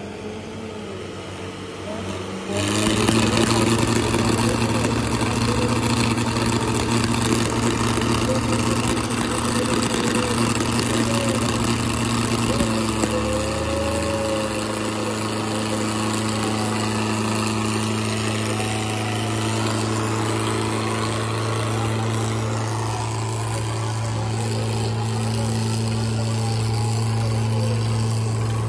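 Two Mahindra diesel tractors, an Arjun 555 and a 575 DI XP Plus, chained together in a tug-of-war. About two and a half seconds in their engines go to full throttle and hold a steady, heavy drone under full pulling load.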